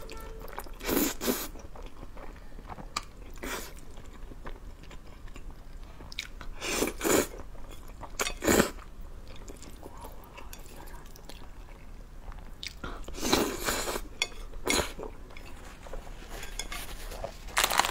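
A person slurping and chewing saucy zhajiang (black bean sauce) noodles close to the microphone: short loud slurps every few seconds, with quieter wet chewing between them.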